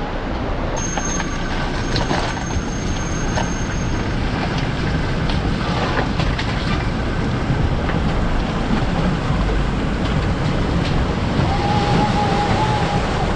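Toyota SUV rolling slowly over loose steel grating laid across a flooded river crossing: a steady rush of fast-flowing water and low vehicle rumble, with a few short metal clanks as the tyres go over the grating.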